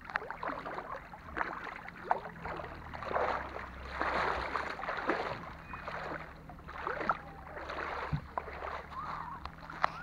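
Irregular splashing of shallow sea water, with a faint steady low hum underneath.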